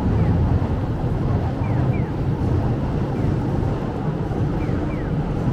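Steady din of a busy city street crossing: traffic rumble and the voices of a crowd. Faint short electronic chirps repeat through it, mostly in pairs about every second and a half, like a Japanese pedestrian crossing's audible signal.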